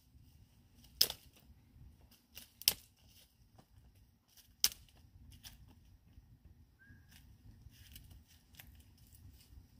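Dry twigs and leaves cracking at a small open wood cooking fire: three loud, sharp snaps in the first five seconds, the second a quick double, with faint crackling between them.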